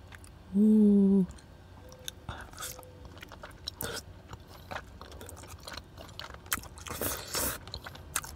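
Close-miked eating of cheesy, saucy tteokbokki rice cakes: a short hummed "mmm" about half a second in, then chewing, wet mouth clicks and a slurp of cheese-covered strands near the end.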